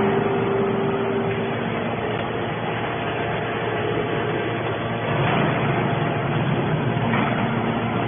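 Hydraulic metal scrap baler running: the steady hum of its hydraulic power unit, becoming heavier about five seconds in.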